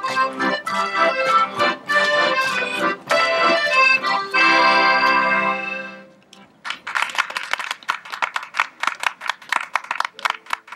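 Lively traditional folk dance music: a melody over a steady beat that ends on a held chord about six seconds in. A quick, even run of sharp clicks or claps follows.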